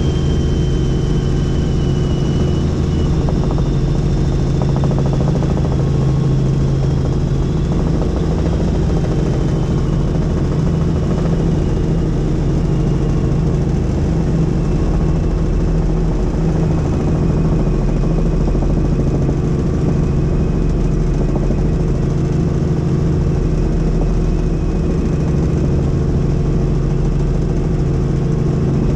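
Helicopter in flight: a loud, steady drone of engine and rotor, with a faint high whine that slowly drifts lower.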